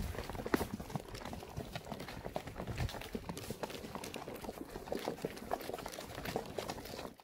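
Hoofbeats of a Tennessee Walking Horse mare: an irregular run of sharp clicks and thuds over a rustling noise, cutting off suddenly at the end.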